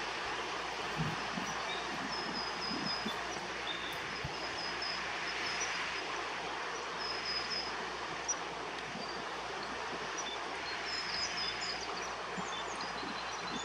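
Several runs of short, high chirps from a small bird, two to four quick notes at a time, over a steady rushing background noise.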